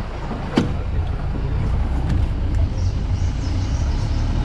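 Safari vehicle in motion, heard from inside the cabin: a steady low engine and road rumble, with one sharp knock about half a second in.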